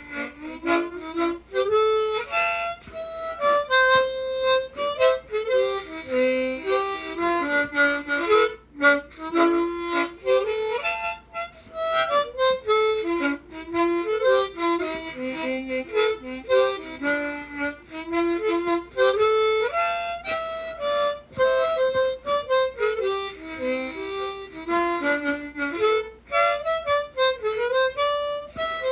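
A large old harmonica with extra low notes playing a quick, lively melody of short notes without a break.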